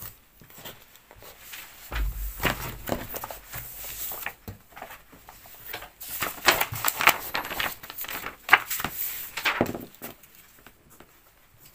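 Paper rustling and handling as a stapled exam booklet is opened, its pages turned and pressed flat on a wooden desk, with scattered soft taps and a dull thump about two seconds in.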